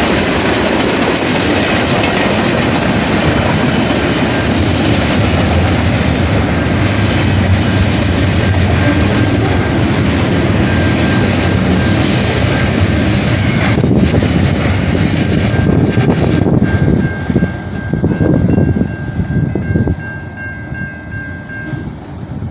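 A train passing close by, its cars rumbling and clacking over the rails, with a thin steady high tone over it. The rumble thins out after about 17 seconds and drops away near the end as the last cars go by.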